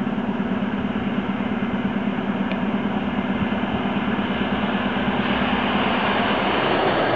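Electric commuter trains at a platform: a steady low hum, with the running noise of an arriving train building up over the last couple of seconds. A faint high whine joins about five seconds in.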